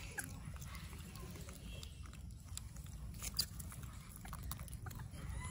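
Baby rhesus macaques chewing food and shuffling about, with scattered small clicks and a sharper click about three and a half seconds in, over a steady low rumble.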